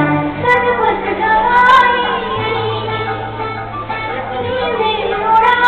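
A song playing: a high sung vocal melody over instrumental backing with steady bass notes.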